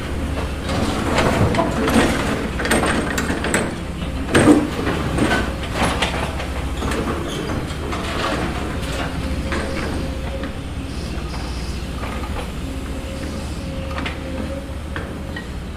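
Small electric motors of a radio-controlled toy excavator whirring under a steady low hum, with irregular clicks and scrapes as it digs dirt, busiest in the first half.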